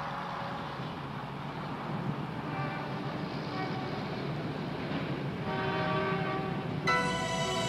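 Night-time city traffic ambience, a steady hum of passing cars with a few short horn toots, then sustained chords swell in and a loud full chord of the intro's theme music enters near the end.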